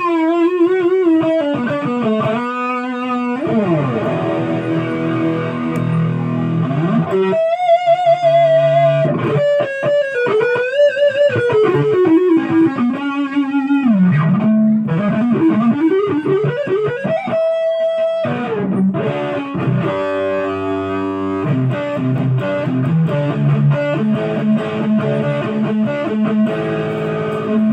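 Busker's Les Paul-style electric guitar playing a single-note lead melody with string bends, slides and wide vibrato, with a held chord about twenty seconds in.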